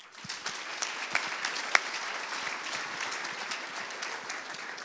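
Audience applauding: many hands clapping at once, holding steady.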